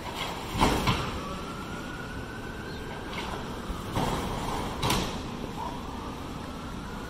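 City street noise: a steady traffic hum with several short sharp bangs and knocks, and twice a faint, slowly rising whine.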